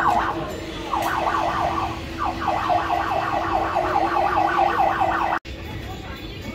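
Electronic yelp siren: rapid rising sweeps, about four or five a second, in runs with short breaks, over a steady hum. It cuts off abruptly about five seconds in.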